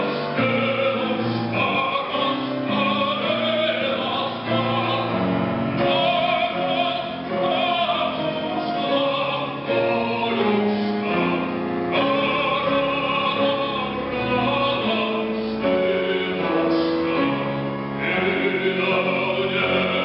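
Music: a man singing a Russian song in a trained, operatic style, with accompaniment.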